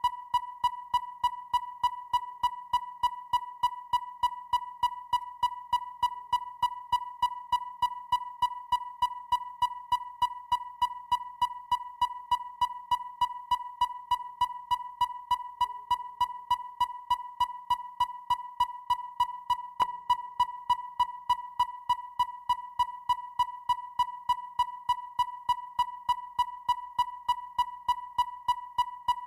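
Depth finder (echo sounder) sound effect: a steady high electronic tone pulsed by sharp, evenly spaced clicks about four times a second.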